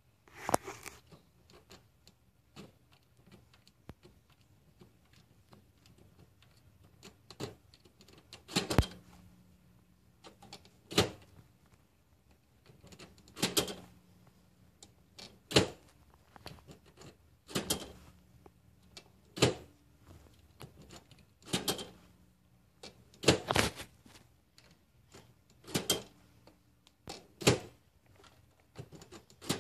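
Printer running: a sharp mechanical clack about every two seconds, with a low steady motor hum between some of the clacks.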